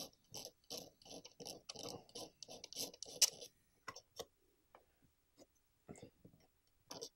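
A pointed metal pick scraping the metal back of a guitar potentiometer casing in quick repeated strokes, about four a second. Partway through it drops to a few scattered scrapes and ticks, then picks up again near the end. The scraping roughens a fresh spot so solder will take for a new ground connection.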